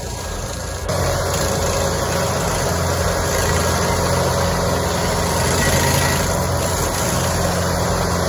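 Engine of a Carlton 7015 TRX tracked stump grinder running steadily, getting louder about a second in.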